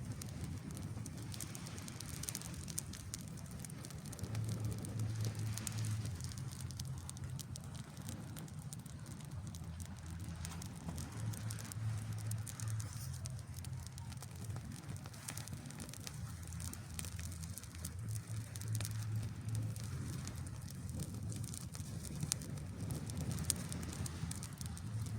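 Wood campfire burning, with many small crackles and pops. Under it a low rumble swells and fades every six or seven seconds.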